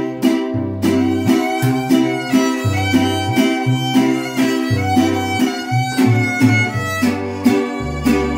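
Acoustic string trio playing an instrumental passage: a violin carries the melody over steadily strummed vihuela chords and a plucked guitarrón bass line that steps between notes.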